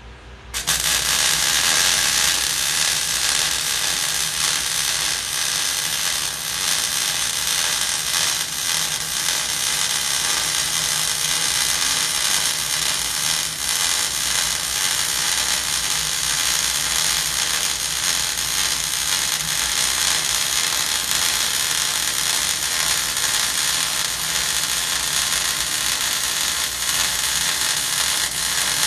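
MIG welding arc struck about half a second in, then burning as a steady crackle while the student runs a fillet weld bead. The machine is set around 18.7 volts with the wire speed near 249, for 3/16 to quarter-inch plate.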